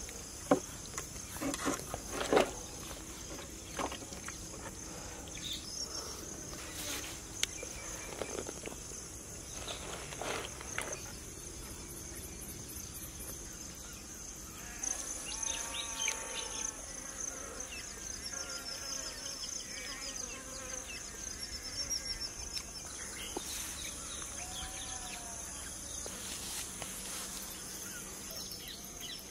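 Steady high-pitched drone of insects. In the first few seconds there are a few sharp knocks as a cleaver strikes a large metal cooking pot.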